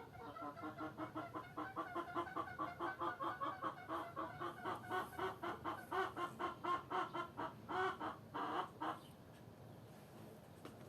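Domestic hen clucking in a rapid, even run of about four to five clucks a second, ending near nine seconds in with two longer, louder squawks.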